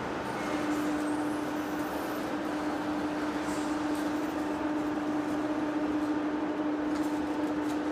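Heavy face lathe running steadily while machining a large shaft, a continuous machine drone with one strong steady tone and a few faint ticks.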